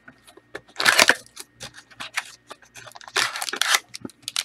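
Trading cards and their packaging being handled: two short stretches of rustling and scraping, about a second in and again around three seconds in, with small clicks and taps between them.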